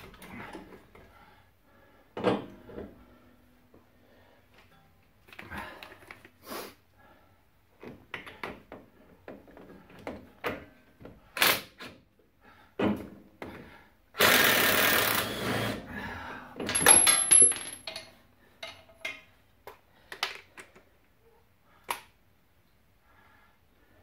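A cordless impact wrench runs on the new front strut of a Ford Explorer, once for about a second and a half midway and again in short bursts just after, with a brief high whine. Scattered clicks and knocks of tools and suspension parts come before and after.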